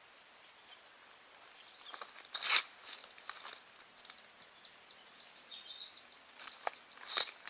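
Quiet outdoor ambience with a handful of short rustling sounds, the loudest about two and a half seconds in and another near the end, and a few faint high bird chirps.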